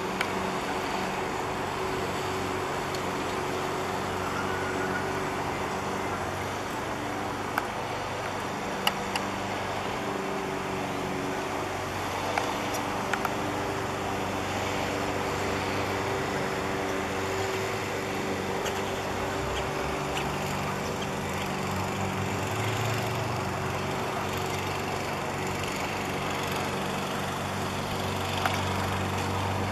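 A motor running steadily, a low hum with a hiss over it, with a few faint clicks.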